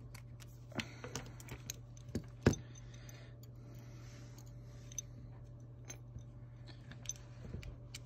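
Scattered small clicks and taps of a precision screwdriver and fingers working on an opened iPhone 8 at the battery connector, with one sharp click about two and a half seconds in, over a low steady hum.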